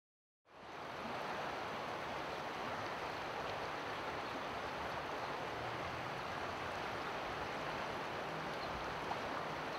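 River water rushing over shallow, broken riffles: a steady rushing that fades in from silence about half a second in.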